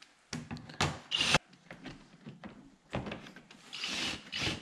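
Cordless drill-driver run in a few short bursts, driving screws into the plastic under-panel beneath a car's front bumper; bursts in the first second and a half, then more near the end.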